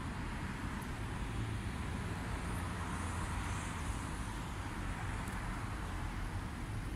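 Steady city street traffic noise, a continuous hum of passing cars that swells a little around the middle.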